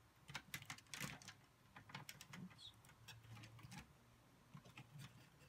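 Faint, scattered clicks and taps of plastic Thunder Megazord toy parts being handled and fitted together, with a cluster of louder clicks about a second in.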